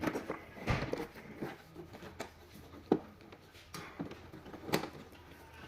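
Scattered light clicks and knocks of objects being handled. There is a dull thump just under a second in, a sharp click about three seconds in, and another click near the five-second mark.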